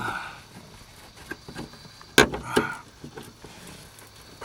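Plastic interior trim in a car cabin being pried loose by hand: small clicks and handling noise, with one sharp loud snap about two seconds in followed by a short scrape.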